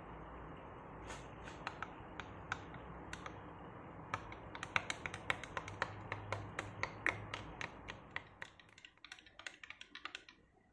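A metal teaspoon stirring coconut milk in a glass, clinking against the glass sides. A few scattered clinks come first, then quick clinking, several a second, for about six seconds, stopping shortly before the end.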